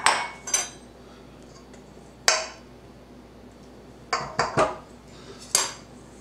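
A spatula and spoon knocking against a stainless steel mixing bowl and a glass bowl as lard and butter are scraped off into the bowl: about seven sharp metallic clinks at irregular spacing, three of them in quick succession about four seconds in.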